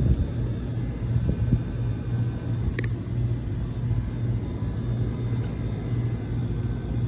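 HVAC belt-driven blower running with a bad pulley: a low hum that swells and fades in an even rhythm about one and a half times a second. A short high chirp about three seconds in.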